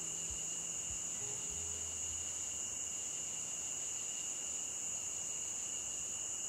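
Steady chorus of crickets, an unbroken high-pitched trill with no pauses. A few soft, low music notes sound beneath it in the first two seconds.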